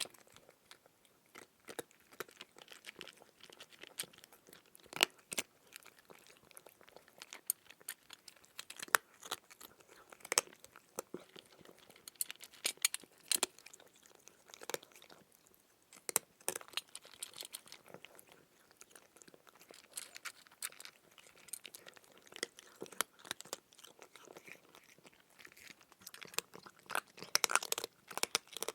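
A cat chewing its food, with irregular sharp crunches several times a second.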